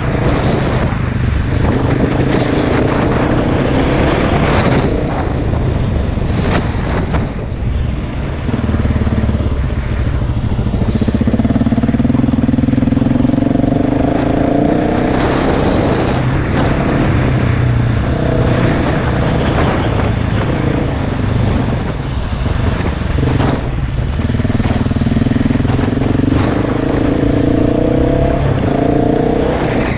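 KTM enduro dirt bike engine revving up and down as the bike is ridden off-road, with several long pulls where the pitch climbs under throttle and falls away when the throttle is closed.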